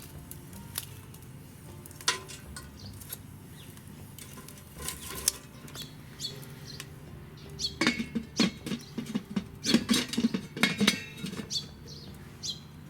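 Scattered sharp clicks and light clatter, with a dense run of rapid knocks about eight seconds in lasting some three seconds, over a low steady hum.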